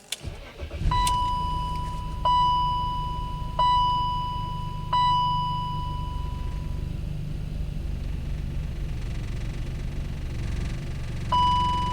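BMW X5 engine starting about a second in and then idling with a steady low rumble; it still runs with its random misfire. A ringing electronic chime sounds four times in the first five seconds and once more near the end, each one fading out.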